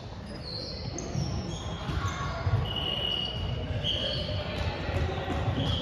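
Sneakers squeaking and feet thudding on a wooden sports-hall court as volleyball players shift in position, with several short, high squeaks and the hall's echo.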